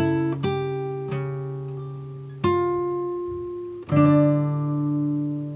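Background music: slow plucked guitar chords, each struck and left to ring and fade, a new chord coming about every second and a half.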